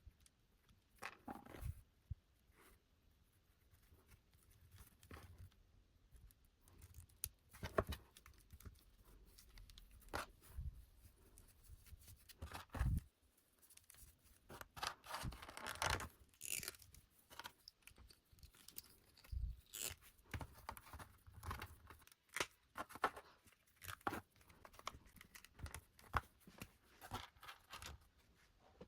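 Doll packaging being handled and opened: quiet, irregular rustling, tearing and small clicks of paper, plastic and cardboard, in short strokes with pauses between.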